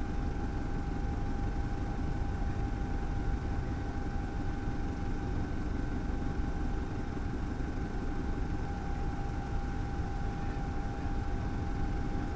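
Helicopter engine and rotor noise heard from aboard: a steady deep rumble with a constant whine over it.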